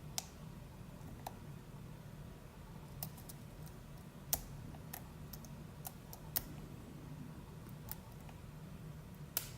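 Light, irregular metallic clicks of a hook pick and tension bar working the pins of an ASSA d12 dimple lock in its keyway, about ten clicks spread unevenly, over a faint low hum.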